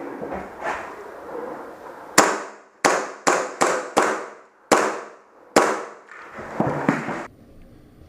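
Semi-auto shots from a gas blowback airsoft rifle: about seven sharp cracks fired in an uneven string over roughly three and a half seconds, each trailing off in a short echo. The sound cuts off suddenly about seven seconds in.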